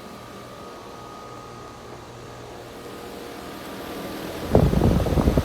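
2016 Ruud 4-ton central air conditioner's outdoor unit running steadily on its first start-up of the season, a steady hum with a faint whine, already cooling. About four and a half seconds in, a loud, rough rumble covers it.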